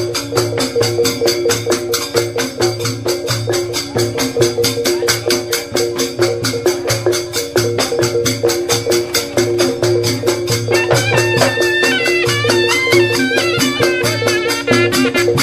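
Traditional percussion music: fast, even drumming and strikes over a steady held tone, with a high wavering melody coming in about eleven seconds in.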